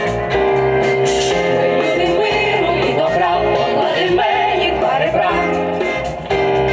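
Music with singing: a band holding sustained chords, with a singing voice most prominent in the middle.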